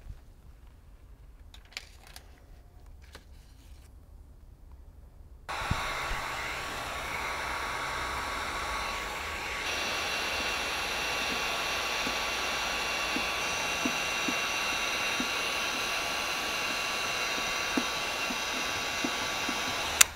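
Electric blower motor running with a steady whine, switched on abruptly about five and a half seconds in, with a few faint ticks under it.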